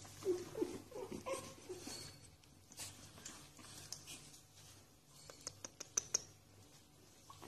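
Pug puppies giving short squeaky whimpers during the first second or so, then scattered sharp clicks of claws on a tile floor, several of them close together near the end.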